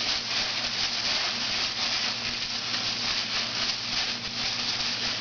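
Thin plastic t-shirt bag crinkling continuously as it is twisted tight around a deadbolt's thumb turn, over a low steady hum.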